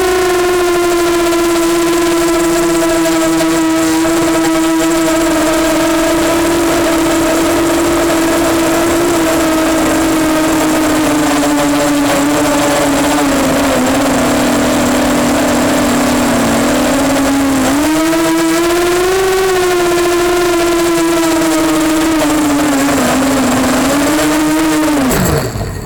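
Brushless motors and propellers of an EMax Nighthawk 250 quadcopter whining in flight: a steady, loud hum with small shifts in pitch and a brief rise about two-thirds through. Near the end the pitch drops sharply as the motors spin down and stop.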